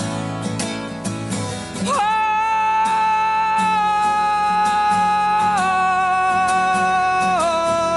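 Recorded song with acoustic guitar: strummed chords, then from about two seconds in a male voice holds one long high sung note that steps down in pitch twice.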